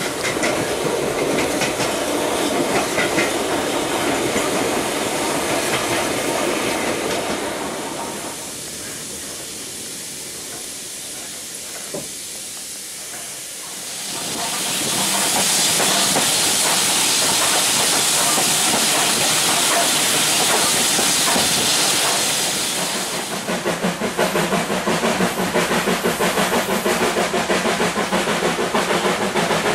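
Steam-hauled passenger train heard from inside a carriage: steady running noise and rail clatter, dropping quieter for a few seconds, then a loud hiss of steam for several seconds before giving way to a fast, regular beat of wheels over the track.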